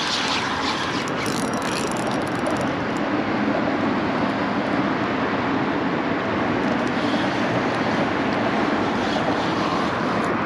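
Steady traffic noise from vehicles crossing a road bridge, a continuous rushing hum with no separate events standing out.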